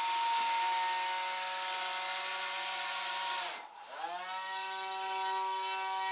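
Small brushed electric motor on an RC air boat spinning its propeller, a steady high whine. A little over three and a half seconds in the throttle is cut: the whine winds down almost to a stop, then spins straight back up to speed.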